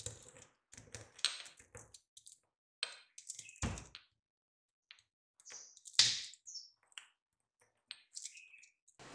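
Stone pestle knocking and grinding in a pale stone mortar, crushing whole seeds: irregular clicks and knocks of stone on stone. The loudest knock comes about six seconds in.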